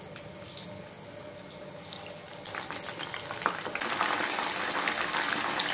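Batter-coated mushroom pieces deep-frying in hot oil: a steady sizzling and bubbling with small pops, growing louder from about two seconds in as more pieces go into the oil.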